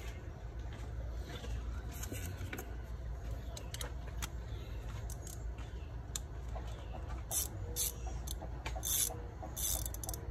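Metal hand tools clinking and rattling, with a few short rattling bursts in the second half, over a steady low rumble.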